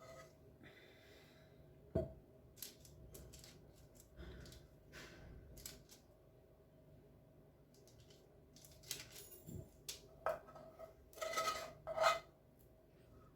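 Kitchen utensils clicking and scraping on and off as small pieces of ginger, honey and lemon caramel are shaped, with a sharp knock about two seconds in and a cluster of scrapes near the end.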